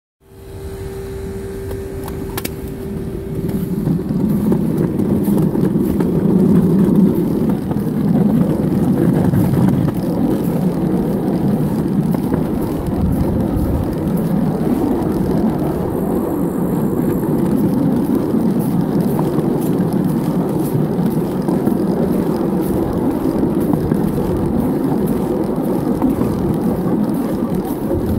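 Pedal-powered rail velocipede running on 7¼-inch gauge miniature railway track, its wheels giving a steady rumble on the rails that grows louder over the first few seconds as it gathers speed. A steady high whine sounds for about the first four seconds, then stops.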